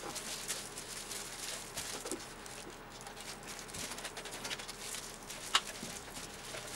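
Wet wooden skewers clicking and rattling against each other and the plastic tub as hands spread them in dye water, with the squish of wet crepe paper being wrung out. One sharper click comes about five and a half seconds in.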